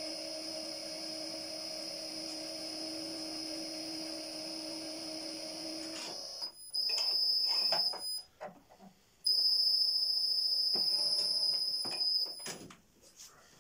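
Uzor-N1 cold-forging machine's electric drive running as a steel bar is rolled through its bending rollers, with a steady high whine. It stops about six seconds in, then runs again in two louder spells with a short pause between them.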